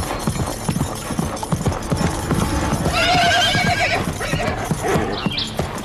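A horse galloping on dirt, with fast, dense hoofbeats throughout. About three seconds in, the horse gives a whinny of about a second that wavers in pitch.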